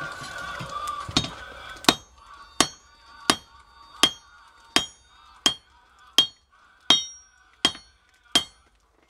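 Hand hammer striking a hot railroad spike on a small anvil, forging it into a knife blade: about ten ringing blows at a steady pace of roughly one and a half a second, starting about two seconds in.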